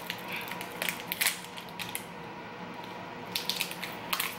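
Paper-and-foil snack wrapper being torn open and unwrapped by hand: irregular crinkling and crackling, busiest about a second in and again near the end, with a quieter stretch in between.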